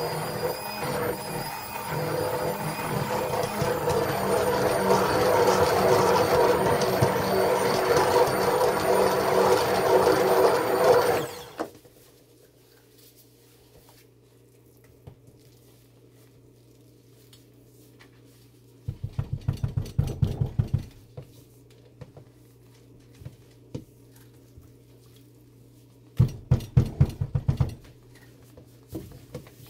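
Stick blender running in thick, cooking hot-process soap batter, a steady motor whine churning the mass, cutting off suddenly about eleven seconds in. Later come two short bouts of rapid knocking and scraping as a spatula works the soap against the stainless pot.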